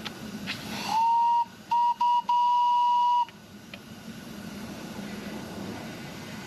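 Miniature live-steam locomotive's whistle, blown about a second in as four steady, clear toots: a first of about half a second, two short ones, then a longer one of about a second. Under and after it is the locomotive's steady running noise.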